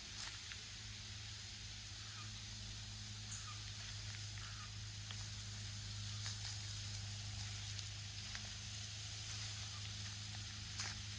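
Outdoor ambience of a steady low hum and hiss, with scattered soft footsteps crunching underfoot and one sharper step near the end.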